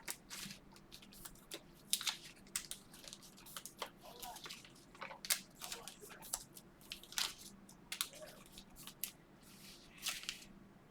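Sports cards and their foil pack wrappers being handled: irregular crinkling, rustling and light clicks.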